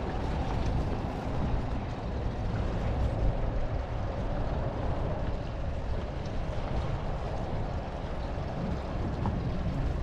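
Motorboat engine running steadily under way, a continuous low rumble with water and hull noise.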